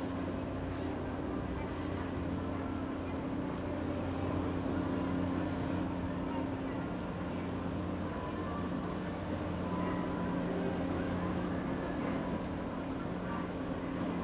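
Sightseeing cruise boat's engine running with a steady low drone, with faint voices behind it.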